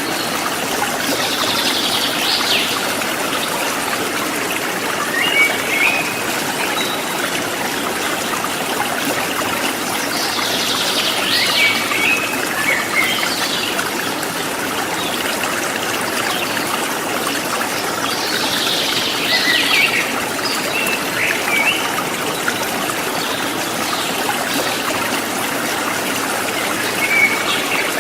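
River water flowing and splashing over rocks, a steady rushing. A bird calls in short bursts of chirps about every eight seconds, four times.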